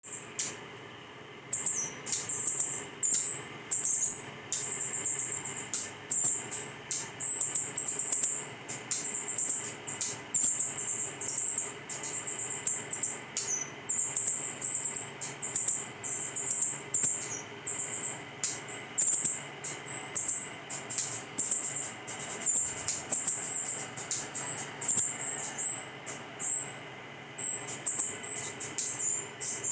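Hanging parrot calling: a steady stream of short, very high-pitched calls, starting about a second and a half in, with sharp clicks scattered among them.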